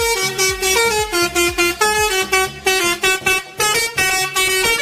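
A telolet-style bus horn tune: a multi-tone horn playing a quick melody of stepped notes, several a second, over a steady drum beat.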